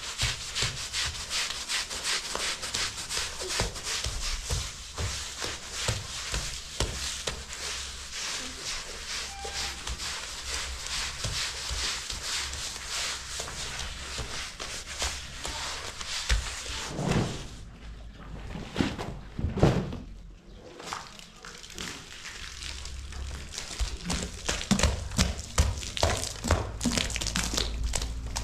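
Rapid, repeated scraping strokes that go on steadily, break off for a few seconds a little past the middle, then start again.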